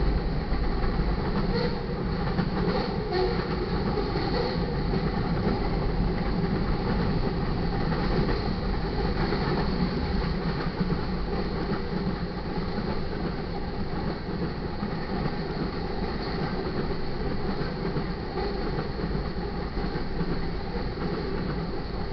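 Freight cars of a manifest train rolling past: steel wheels on the rails making a steady rumble, with a few clicks in the first seconds.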